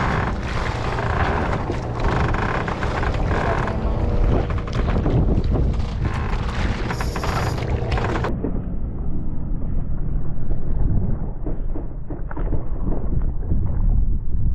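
Wind buffeting the microphone aboard a boat at sea, a steady low rumble. About eight seconds in the sound turns duller and more muffled.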